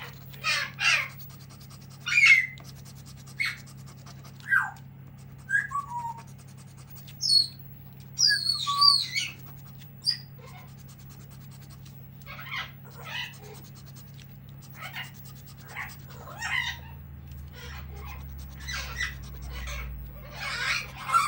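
A pet bird calling in a series of short, shrill calls and whistles, several sliding down in pitch, with a quick run of high chirps about eight seconds in and busier calling near the end.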